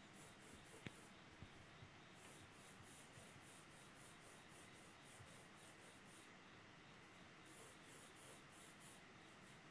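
Faint scratching of a graphite pencil on drawing paper in quick short strokes, about four a second, in runs of a few seconds with a pause in between; a faint tick about a second in.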